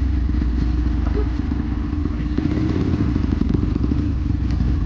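Dirt bike engine running steadily under way on a trail, with frequent small knocks and rattles over it.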